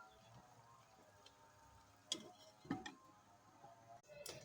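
A few faint, sharp eating clicks, crunches or utensil taps, about two seconds in, again shortly after, and near the end, over near silence.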